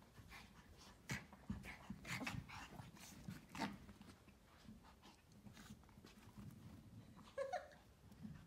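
Pomeranian puppies play-wrestling on carpet: faint scuffling, panting and light knocks, with one brief high-pitched dog cry about seven seconds in.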